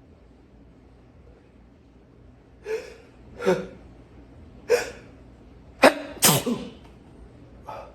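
A person in a sneezing fit, sneezing repeatedly with gasping breaths: six short bursts in about five seconds, starting about two and a half seconds in. The loudest two come in quick succession about six seconds in.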